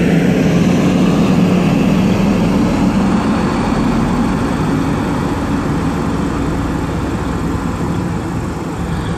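Class 185 diesel multiple unit's engines running steadily, a low drone easing off slightly near the end.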